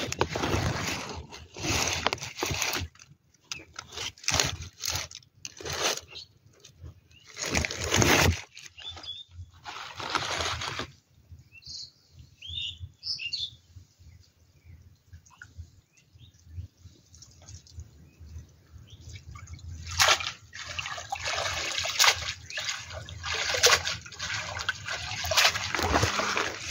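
Water splashing, sloshing and trickling in uneven bursts as a wet cast net is hauled out of a shallow canal and gathered in. There is a quieter stretch about halfway through, then steadier splashing toward the end.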